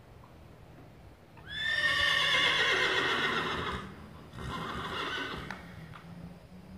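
A horse whinnies about a second and a half in: a long, loud, high call that slides down in pitch over about two seconds, followed by a second, shorter call.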